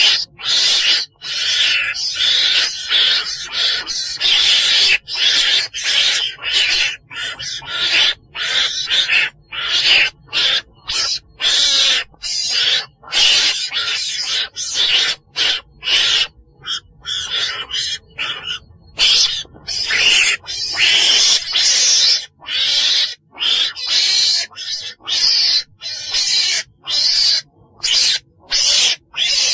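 Recorded calls of a chồn đèn, a small wild weasel-like carnivore, in a quick, uneven string of high-pitched, raspy cries split by brief gaps. A faint steady low hum runs under them.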